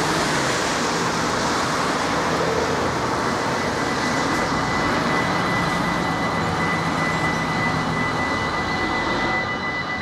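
Road traffic passing the level crossing, a steady rush of car tyres and engines. About halfway through, the crossing's warning bell starts ringing as its red lights come on, a steady high ringing that carries on as the barriers come down.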